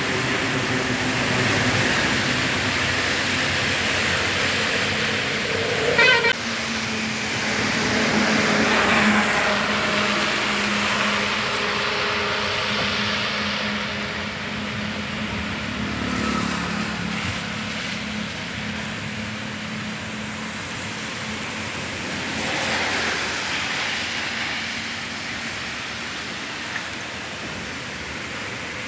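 Rain and road traffic on a flooded street: a steady wash of rain with vehicle engines running and several cars swelling past through the water, and a short sharp knock about six seconds in.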